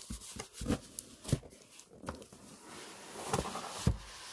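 Cardboard boxes being handled and set down: a series of hollow knocks and bumps, with a scraping, scuffing hiss building over the last second or so as a box slides against cardboard.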